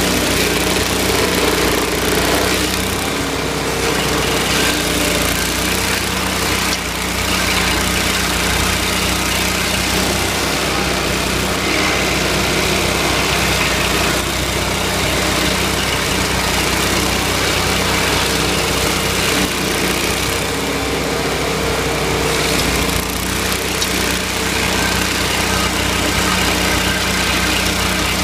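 Vermeer SC252 stump grinder's Kohler 27 hp V-twin engine running steadily and loudly, while the cutter wheel grinds a tree stump into chips. The grinding noise eases briefly a couple of times as the wheel sweeps across the stump.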